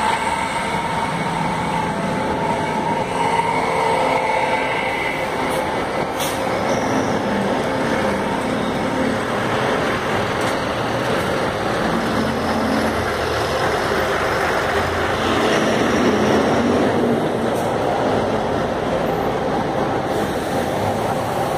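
Heavy street traffic with city buses running close by: a steady din of bus engines and passing cars.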